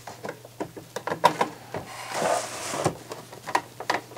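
Hand screwdriver working a screw into a CD player's sheet-metal chassis: a string of small clicks and knocks of metal being handled, with a scraping rasp lasting about a second near the middle.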